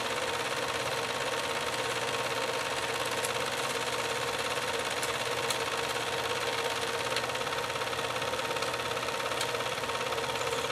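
Home-movie film projector running, its mechanism giving a steady whir with a constant tone and a few faint clicks.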